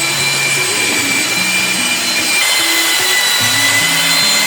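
Drill with a paddle mixer running at speed in thinset mortar, a steady motor whine that shifts to a slightly different pitch about two seconds in.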